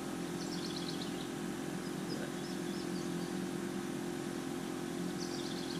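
A steady low hum, with a bird chirping high up briefly about half a second in and again near the end.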